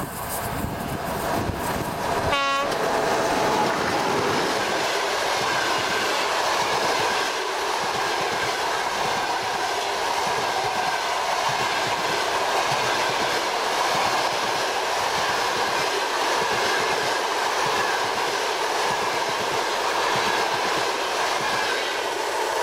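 Passenger train hauled by a ChS2t electric locomotive running past, a loud steady rolling rumble with wheels clattering over the rail joints. A brief falling sweep comes about two and a half seconds in.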